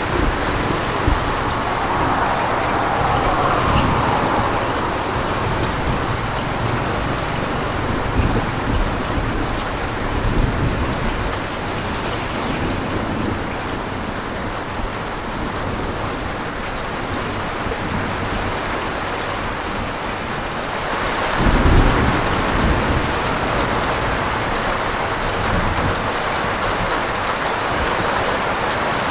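Thunderstorm: steady heavy rain pattering on surfaces, with low rolling thunder underneath and a louder thunder rumble about three-quarters of the way through.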